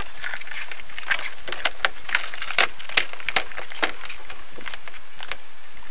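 Liquid-latex mould being peeled off the bark of a log: irregular crackling and sharp snaps, a few a second, as the rubber pulls free of the bark.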